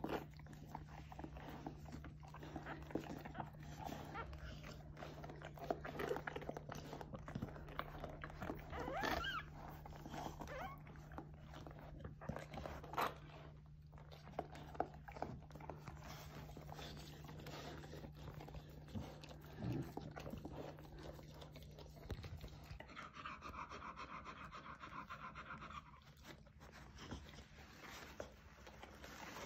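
English springer spaniel mother panting heavily while licking her newborn puppy, with irregular wet licking and smacking sounds. A steady low hum runs under it and stops about three-quarters of the way through.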